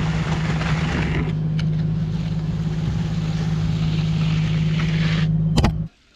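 An engine running steadily, a constant low hum with a broad hiss over it. There is a sharp click just before it cuts off abruptly near the end.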